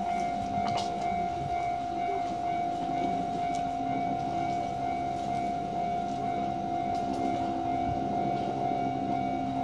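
Japanese railway level-crossing warning bell sounding, a steady high electronic tone that does not break, over a low rumble.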